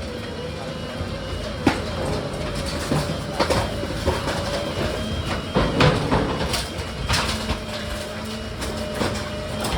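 Heavy machine running with a steady hum and irregular clanks and knocks, typical of a dumpster-grinding machine at work.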